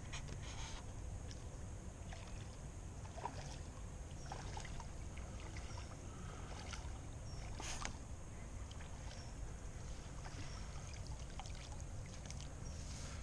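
A hooked carp splashing and stirring the surface near a landing net: scattered short splashes, the clearest about three, four and eight seconds in. Under them runs a low steady rumble on the microphone.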